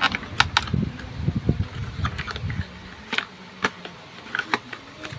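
Handling noise from a plastic braided-line spool and its cardboard packaging: irregular sharp clicks and taps, with some low rustling in the first couple of seconds.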